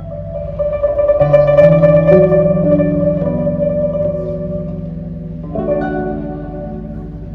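Background music with plucked string notes.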